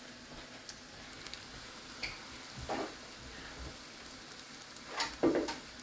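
Hushpuppies deep-frying in a saucepan of hot oil: a steady sizzle and bubbling, with a few brief louder sounds about two seconds in, near three seconds and about five seconds in.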